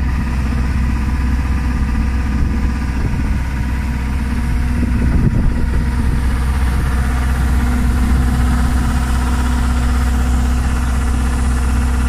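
Sappers AP88 mini combine harvester running steadily close up while its unloading auger pours grain into a trailer: a loud, even engine and machinery drone.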